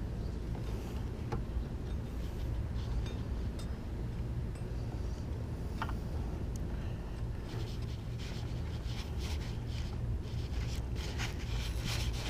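Scattered light metallic clicks and rubbing from hand work on engine parts, getting busier in the second half, over a steady low hum.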